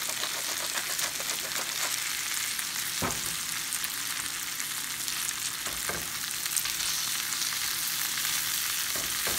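Pheasant back mushrooms and ramps sizzling steadily in oil and butter in a cast-iron skillet: their water has cooked off, so they are now frying in the oil. A few faint clicks come through the hiss, and a utensil stirs the pan near the end.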